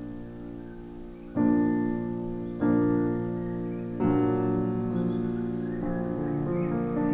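Background piano music: slow, sustained chords struck a few times and left to ring.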